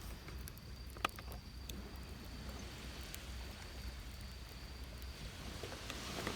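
Beach campfire crackling, with a few sharp pops, the loudest about a second in. Under it runs a low, steady wash of surf and a thin, steady high insect trill.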